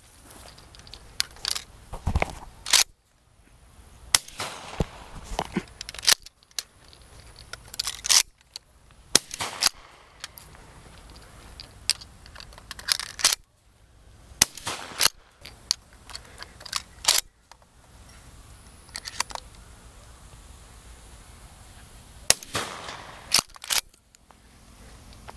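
Shotgun shots fired over and over, roughly one every second or so with short pauses. Some are loud and close, others fainter and farther off.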